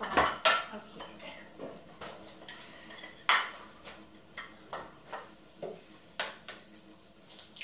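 Kitchen bowls and utensils knocking and clinking on a countertop as they are handled and moved about, in a series of separate sharp knocks; the loudest comes about three seconds in, with others near the start and about six seconds in.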